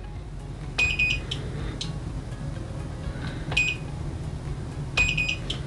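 Sanwa HG561H digital insulation tester's piezo beeper sounding three short high-pitched beeps as its test button is pressed, with a faint click between the first two.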